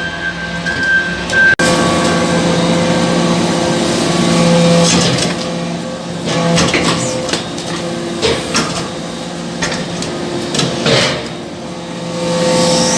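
Hydraulic briquetting press for iron chips running: a steady machine hum with scattered clicks and clanks.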